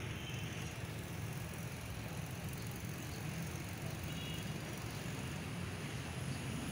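Steady low rumble with a hiss of outdoor background noise, with no distinct events standing out.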